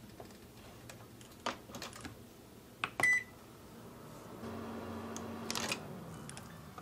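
Clicks of an oven's controls and a short electronic beep about three seconds in, then the oven starts running with a low steady hum that fades near the end, with a few more clicks.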